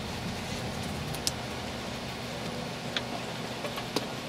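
Rubber bicycle tire bead being pushed by hand over the wheel rim, with a few sharp clicks about a second, three seconds and four seconds in, over a steady low background hum.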